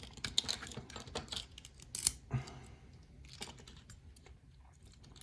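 Light, irregular metallic clicks and taps from a pin-tumbler lock and small tools being handled as the lock is taken apart, densest in the first couple of seconds, with a few sharper clicks around the middle.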